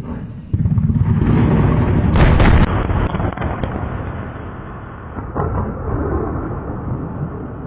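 Explosive charge blowing up a boat on a flooded river: a sudden blast about half a second in, then a long rumble that slowly dies away over several seconds. A second, weaker bang comes about five seconds in.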